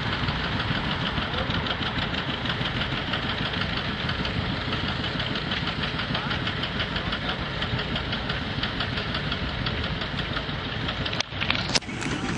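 Two-cylinder John Deere tractor engine running with an even, rapid beat. Near the end a couple of sharp knocks cut across it as the camera is moved.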